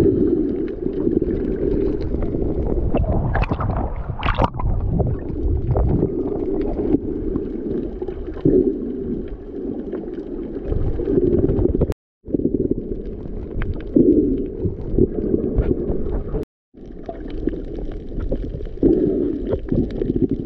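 Muffled underwater sound picked up by a snorkeler's GoPro below the surface: a low water rush and gurgling. It cuts out briefly twice, about twelve and sixteen seconds in.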